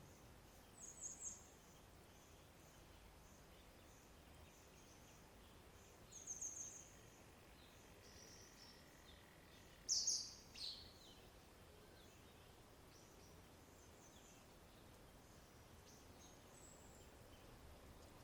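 Wild birds calling: short bursts of high chirps about a second in, again around six seconds, and the loudest pair near ten seconds, over a faint steady background hiss.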